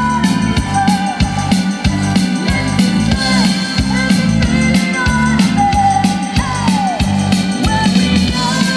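Live band playing an upbeat rock song: a woman's lead vocals over a drum kit keeping a steady beat and electric guitar.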